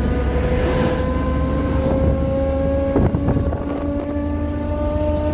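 Cabin sound of an old Lada car under way: a heavy low rumble with an engine-and-drivetrain whine that slowly rises in pitch as it gathers speed, and a few knocks and rattles about three seconds in.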